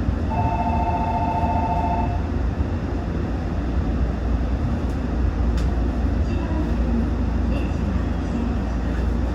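Steady low hum of a Toyo Rapid Railway 2000-series electric train standing at a station. A pulsing two-tone electronic chime sounds for about two seconds right at the start.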